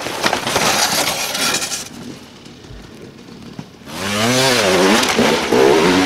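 Dirt bike engines under throttle. A raspy, high-revving engine sounds for about the first two seconds, then it goes quieter. About four seconds in a bike engine comes in loud, its pitch rising and falling with the throttle.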